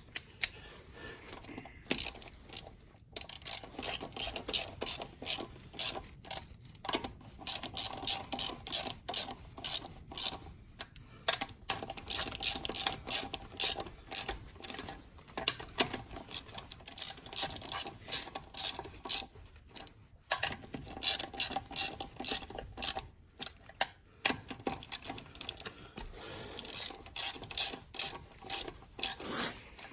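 Ratchet wrench clicking in quick runs with short pauses between, as a Warn manual locking hub is snugged up on its mount.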